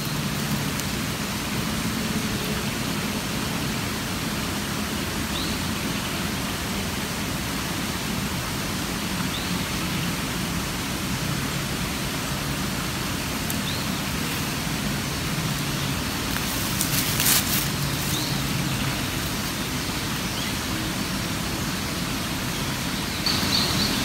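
Steady, even hiss of light rain and running water outdoors. A brief, sharper burst of noise comes about seventeen seconds in.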